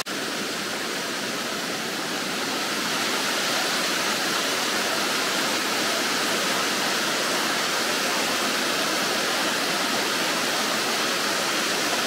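Steady rushing of water from a small waterfall on a mountain stream, an even hiss that grows slightly louder after a couple of seconds.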